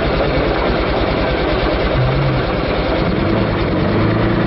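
A vehicle driving along a gravel road: an engine running steadily under loud tyre and road noise, with the engine hum coming through more clearly in the second half.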